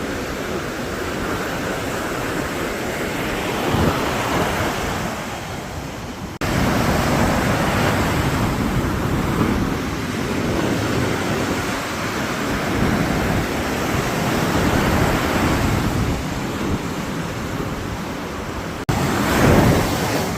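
Ocean surf breaking and washing up a sandy beach, swelling and easing, with wind on the microphone. The sound changes abruptly twice, about six seconds in and near the end.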